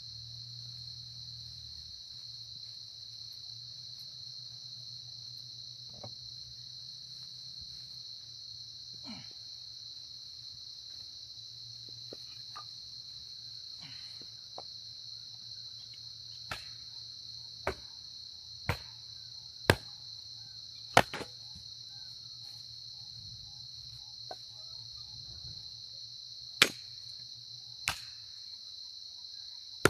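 A steady, high-pitched insect chorus. From about halfway through come sharp wooden knocks, about one a second and a few louder than the rest, as firewood is split into kindling.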